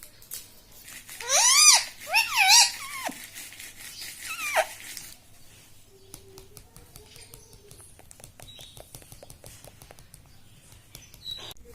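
Rose-ringed (ringneck) parakeet calling: two loud squawks that rise and fall in pitch in the first three seconds, a shorter one a second or so later, then faint rapid clicking.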